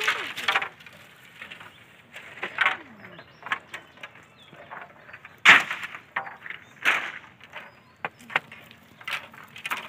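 Bamboo poles knocking and clattering against each other in irregular sharp strokes, the two loudest about halfway through, a second and a half apart.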